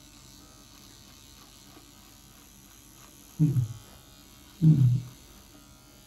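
Philips Series 1000 electric shaver buzzing faintly and steadily as it is run over the face. Twice a short vocal sound from the man cuts in, about three and a half and about four and a half seconds in.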